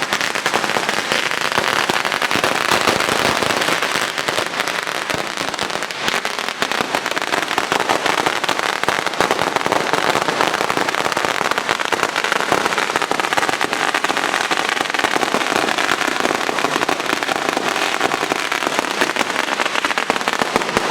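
Fireworks crackling and popping in a dense, unbroken barrage, with many rapid reports merging into a continuous crackle.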